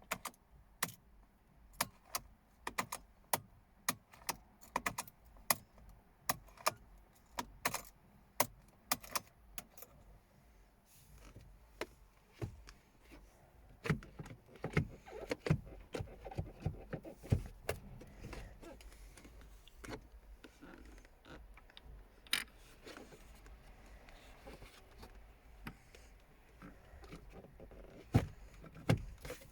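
Irregular sharp clicks and light rattles, as of hands working small plastic and metal parts inside a car. They are densest about halfway through, with a few loud clicks near the end.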